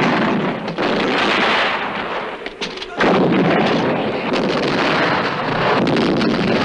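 Battle soundtrack of artillery fire and shell explosions: a dense, continuous din of blasts, with fresh heavy blasts about a second in and again about three seconds in.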